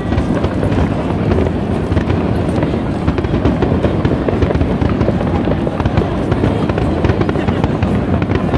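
Fireworks going off in a dense, continuous barrage: overlapping shell bursts with many sharp crackles, no pause between them.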